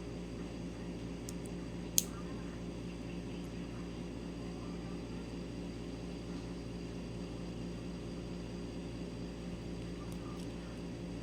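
Steady low hum of room background noise. A single sharp click comes about two seconds in, and a few faint ticks follow later, from small plastic LEGO pieces being handled.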